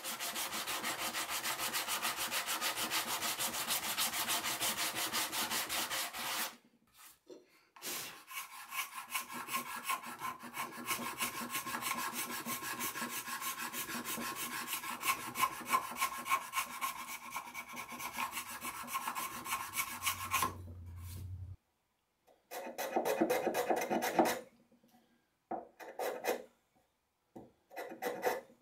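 Hand filing and rubbing on a spalted maple block. First comes about six seconds of fast back-and-forth hand rubbing. After a short break, steady strokes of a hand file across the end grain run for about twelve seconds. A few shorter scraping bursts follow near the end.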